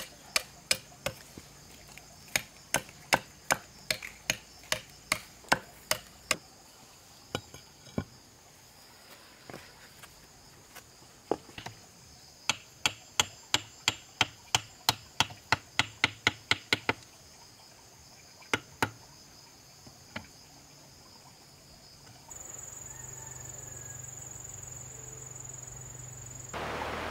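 Sharp, evenly spaced strikes of a hand tool in runs of about three a second, over a steady high chirring of insects. About three-quarters of the way through, the strikes stop and a louder, steady high insect buzz with a low hum takes over.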